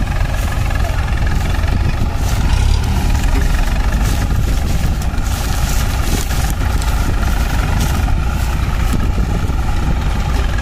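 Diesel engines of two farm tractors, an Eicher 551 and a Hindustan, running steadily under load while hauling a sugarcane-laden trolley stuck in mud.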